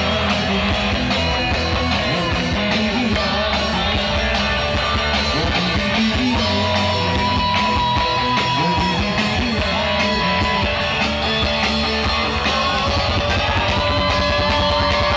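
Live rock band playing through a PA: a male voice singing long held notes over guitars and drums.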